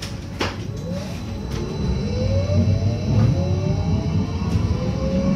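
Berlin U-Bahn train accelerating away from a station, heard from inside the car: the traction motors' whine rises in pitch in several parallel tones over a low running rumble, growing louder as it gathers speed.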